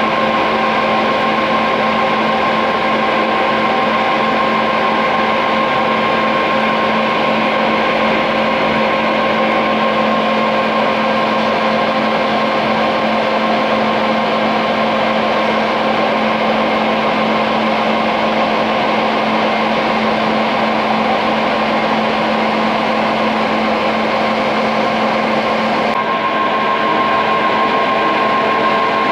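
Modern 2080-6 CNC lathe running a facing cycle with its chuck spinning: a steady mechanical hum with a few held tones, shifting slightly about 26 seconds in.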